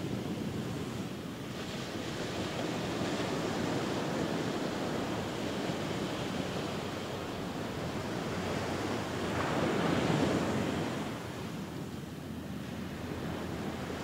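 Ocean surf breaking and washing in, with wind buffeting the microphone. It rises and falls in loudness and is loudest about ten seconds in.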